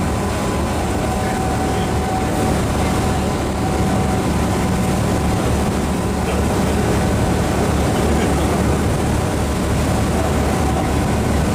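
A boat's engine drones steadily underway, heard from on board, over a constant rush of noise from wind and water, with a faint steady whine.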